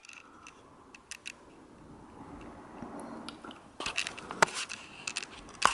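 Faint rustling with a few scattered small clicks from a handheld camera being moved and handled, fingers and clothing brushing it.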